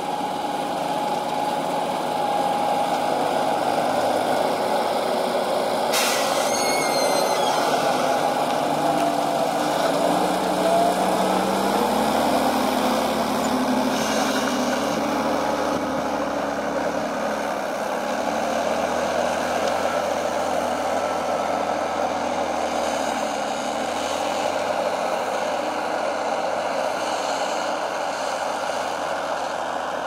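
Fendt 936 Vario tractor's six-cylinder diesel engine running steadily under load while pulling an eight-furrow reversible plough, its pitch shifting slightly about ten seconds in. There is a brief sharp click about six seconds in.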